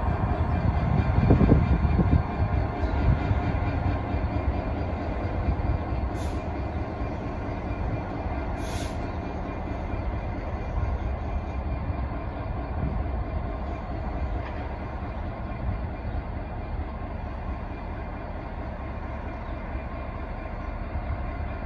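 Class 66 diesel freight locomotive and its train of wagons pulling away, the engine and rolling wagons running steadily and fading gradually as the train recedes. Two short high-pitched sounds come about six and nine seconds in.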